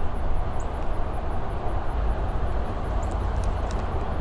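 Wind buffeting an action camera's microphone: a steady low rumble and rush of noise.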